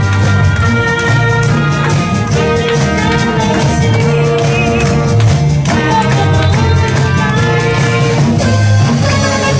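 Live pop band playing an upbeat instrumental passage, with trumpet, acoustic guitar and keyboard over a steady bass.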